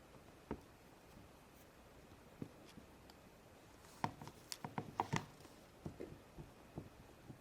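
Faint handling noise of hands pressing and placing Play-Doh strips on a tabletop: scattered light taps and clicks, with a quick cluster of them about four to five seconds in.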